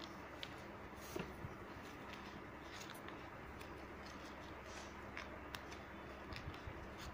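Faint crinkling and rustling of a red ribbon being scrunched and gathered by hand, a few small crackles scattered over a steady background hiss.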